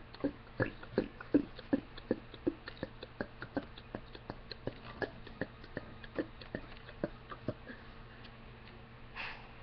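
A long run of short, rapid hiccup-burps from a girl, about three to four a second, which stops about three quarters of the way through. A brief breathy sound follows near the end.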